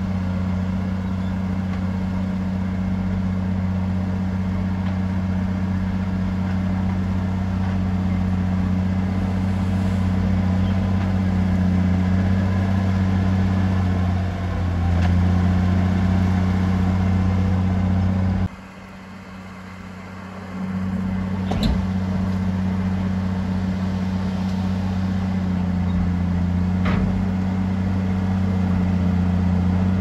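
Heavy earthmoving machine's diesel engine running steadily with a deep, even drone. The sound drops out abruptly for about two seconds just past the middle, then comes back. A couple of sharp metallic knocks follow later on.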